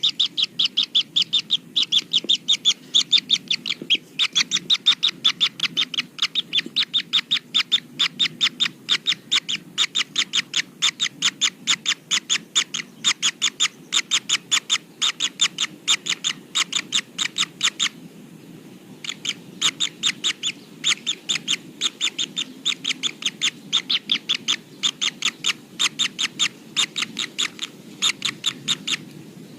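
Kingfisher giving a long run of short, high calls, about four to five a second, with a brief pause about eighteen seconds in.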